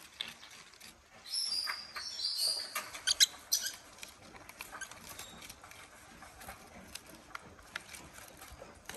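Small pet parrot giving a short run of high chirps about a second in, then scattered light clicks and taps.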